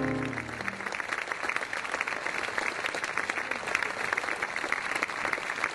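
Audience applauding a song's end, many hands clapping at once. The last sustained piano chord fades out under the applause within the first second.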